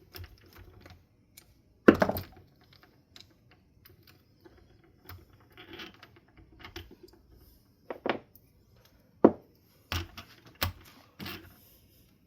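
Clicks and knocks of ceiling fan motor parts being handled and set down during a bearing change, with one sharp knock about two seconds in and several more in the last third.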